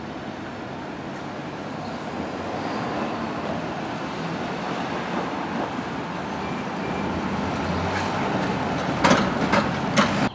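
Road traffic passing over a railroad grade crossing, a steady noise slowly growing louder. Near the end a box truck crosses the tracks with three sharp knocks about half a second apart.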